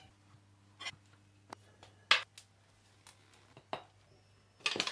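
Tools clicking and knocking against a motocross wheel while a tyre is fitted back over a new inner tube: a few sparse light knocks, the loudest about two seconds in, then a quick cluster of clinks near the end.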